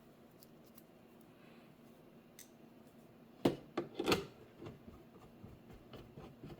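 Hands handling the monitor's stand and screws: quiet at first, then a few sharp plastic knocks and clicks about three and a half seconds in, followed by lighter ticks.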